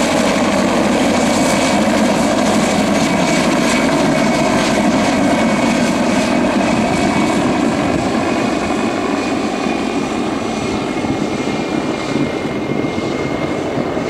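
PZL Mi-2 helicopter flying overhead, its twin turbine engines and rotor making a steady, loud noise with a thin high whine, a little quieter in the second half.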